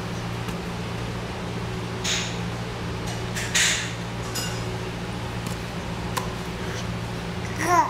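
A steady low hum, with two short hissing rushes of noise about two and three and a half seconds in, a single light tap about six seconds in, and a brief rising-and-falling voice sound near the end.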